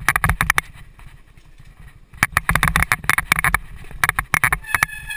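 Mountain bike rattling over rough dirt singletrack: rapid clattering of the bike's parts over bumps, with a low rumble of tyres and wind, in bursts with a quieter stretch early on. Near the end a steady, high-pitched brake squeal begins as the bike slows.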